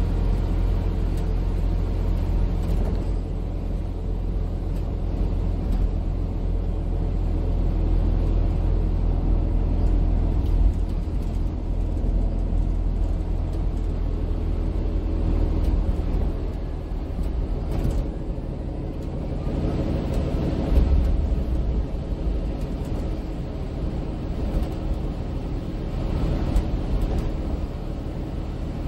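Interior running noise of a MAN Lion's City 12C EfficientHybrid city bus under way, heard from a passenger seat: a steady low rumble of its 280 hp diesel engine and drivetrain, with road noise. A few thumps come through about ten and twenty seconds in.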